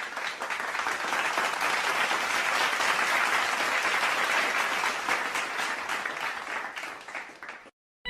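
Crowd applause, many hands clapping at once, building over the first couple of seconds, holding, then fading away and stopping shortly before the end.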